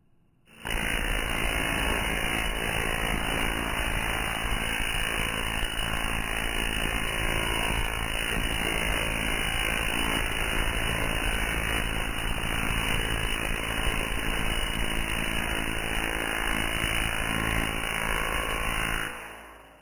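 Tesla coil firing, its sparks giving a loud, steady, harsh crackling buzz as they arc from the toroid to a grounded strike target. It starts abruptly about half a second in and fades out about a second before the end.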